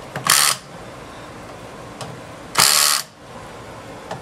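Cordless power screwdriver run in two short bursts about two seconds apart, tightening the screws of a generator controller's sheet-metal cover.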